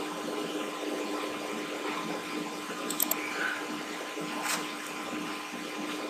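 Steady background hiss with a low electrical hum from the recording microphone setup. A few short clicks come about three and four and a half seconds in, which are mouse clicks as tools are selected.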